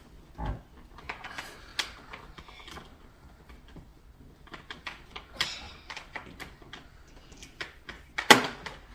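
Vacuum cleaner power cable being wound around the machine's handle and cable hooks: irregular plastic clicks and taps of the cord and plug against the body, with a louder knock about eight seconds in.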